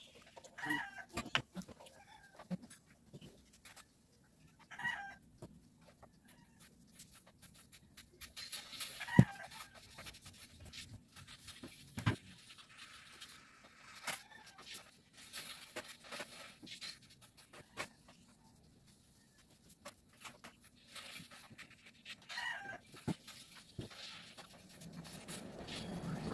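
Metal parts of a starter motor clinking and knocking as they are handled on a workbench, with a sharp knock about nine seconds in and another about twelve seconds in. A chicken clucks a few times in the background.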